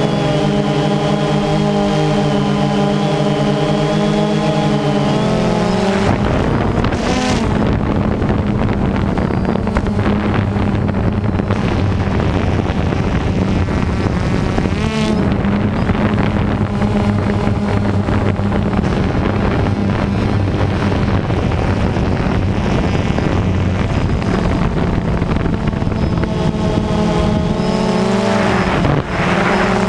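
Motors and propellers of a DJI Phantom 2 quadcopter, heard from its onboard camera: a steady, loud multi-tone buzzing whine. The pitch shifts as the motor speeds change, about six seconds in and again near the end.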